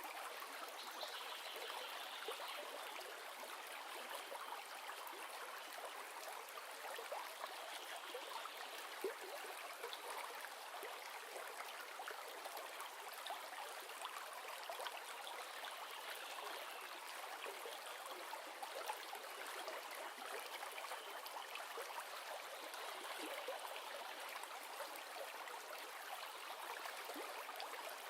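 River running: steady rushing and babbling of flowing water, played as a white-noise background.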